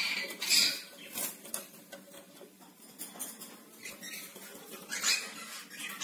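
Cockatiels at a wooden nest box in a wire cage: scratching and rustling of claws and beaks on wood and wire, with a few short high-pitched squeaks, the loudest about half a second in and again about five seconds in.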